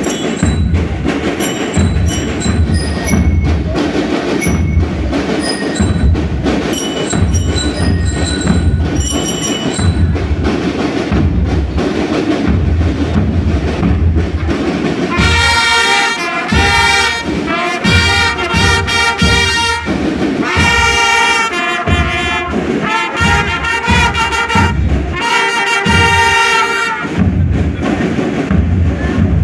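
School marching band playing a march. Drums keep a steady beat, and about halfway through the trumpets come in with a loud melody in several phrases, then drop out near the end, leaving the drums.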